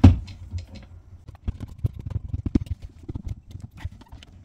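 Handheld hydraulic crimping tool being pumped to crimp a cable lug: a loud knock at the start, then a string of short, irregular clicks and knocks as the handle is worked.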